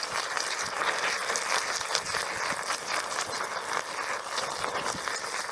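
Charcoal furnace burning hard under a forced-air blast: a steady rushing hiss full of fine crackles as the failed steel crucible and molten aluminum burn inside.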